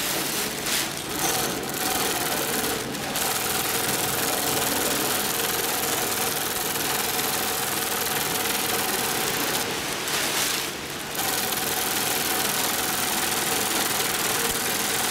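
Industrial long-arm zigzag sewing machine running steadily as it stitches white sail fabric, with a couple of short pauses, one about three seconds in and a longer one near eleven seconds.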